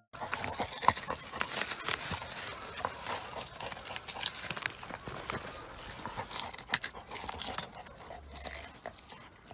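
A dog rooting in loose garden soil among leafy plants: a dense, irregular run of scratches and crackles of earth and leaves, a little quieter in the second half.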